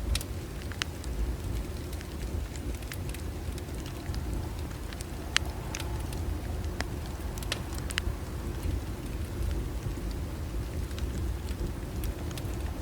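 Bonfire crackling, with scattered sharp pops and snaps over a steady low rumble.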